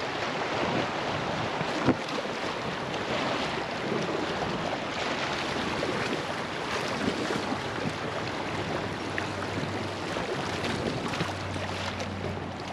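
River water rushing and splashing around a floating raft, with wind buffeting the microphone. A single sharp knock comes about two seconds in, and a faint low hum comes in over the last few seconds.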